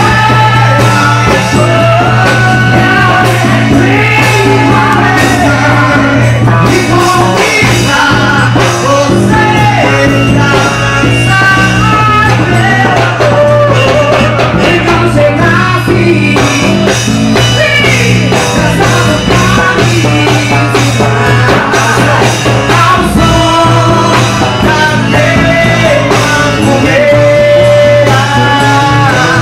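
Loud band music with a sung melody over a steady low bass.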